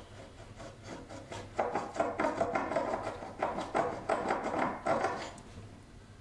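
Wood scraping and rubbing against wood, with many quick small knocks, for a few seconds from about a second and a half in.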